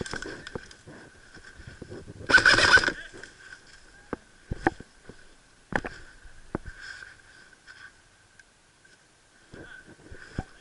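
Airsoft rifle fire: a short rattling burst about two seconds in, then a few single sharp shots spaced a second or more apart.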